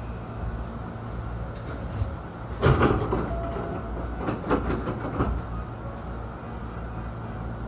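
Hankyu electric train running, a steady low rumble with a loud burst of clattering knocks about three seconds in and a few more sharp knocks a little later, the wheels clattering over the track.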